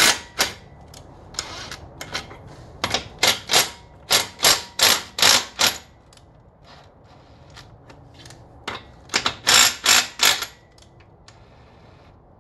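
Cordless power tool run in many short bursts, in several groups, loosening the bolts on the bearing cap of an AAM 11.5 rear axle's differential.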